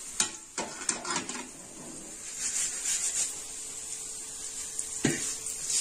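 Metal spoon scraping and knocking against an aluminium kadai as a tempering of shallots and curry leaves is stirred, with a few sharp knocks in the first second and a half and another about five seconds in.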